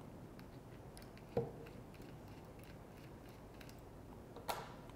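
Faint small ticks of a screwdriver backing out the grip screws of a Colt 1911 compact pistol, with a light knock about a second and a half in and a sharper click near the end.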